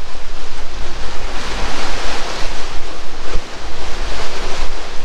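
Sea water rushing and breaking along the hull of a sailing catamaran under way, loud, with wind buffeting the microphone.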